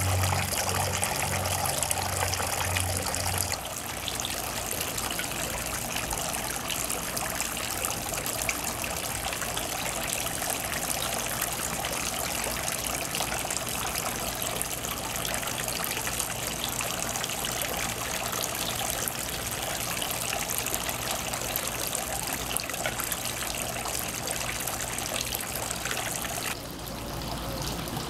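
Garden fountain water splashing and trickling steadily into its stone basin.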